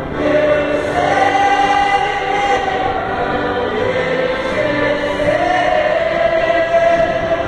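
A man singing a slow gospel hymn into a microphone, amplified in a reverberant hall, holding long notes and sliding between them.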